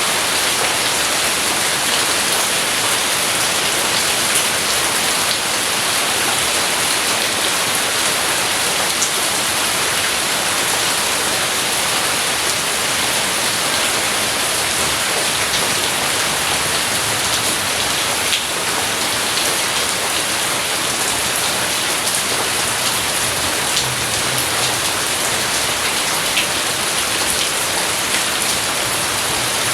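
Steady rain falling: a dense, even hiss with scattered sharper drop ticks.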